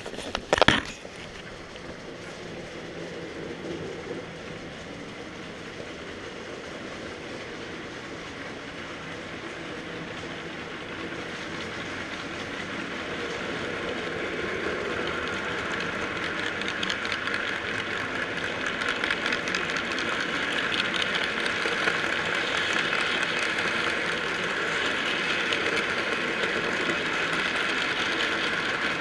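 Model freight train, hauled by a model E44 electric locomotive, running past on the layout's track: a steady rolling noise of motor and wheels on the rails that grows louder as the locomotive and wagons pass close by. A single sharp knock about a second in.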